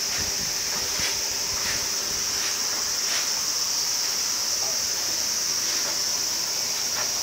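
A steady high-pitched hiss, with a few faint short rustles or taps scattered through it.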